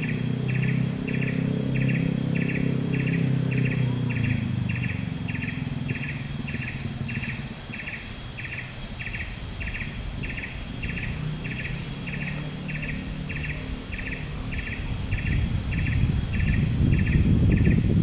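An insect chirping in a steady, even rhythm of about two short pulses a second. Under it a low rumble comes and goes, strongest at the start and swelling near the end.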